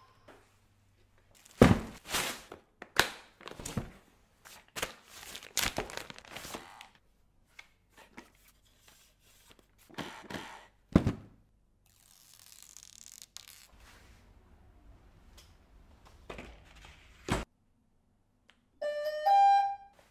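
Metal clanks, knocks and scrapes of wrenches and drone parts being handled during assembly of a large DJI drone, in quick runs of sharp hits with a few louder single knocks. Just before the end, a short two-note electronic beep that steps up in pitch.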